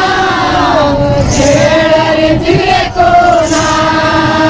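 A group of men chanting a Muharram folk song in unison, in long drawn-out lines that pause briefly about a second in and again near three seconds.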